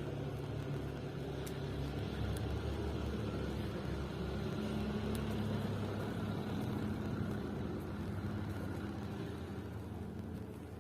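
An engine running steadily with a low hum, its pitch shifting slightly a couple of times.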